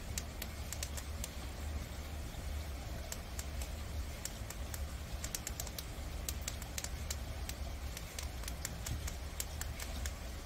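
Prairie dogs nibbling dry unsalted noodle sticks: quick, irregular crunchy clicks in clusters, over a steady low hum.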